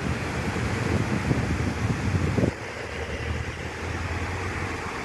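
Water spilling over a concrete dam spillway, a steady rushing, with wind buffeting the microphone that drops off suddenly about halfway through.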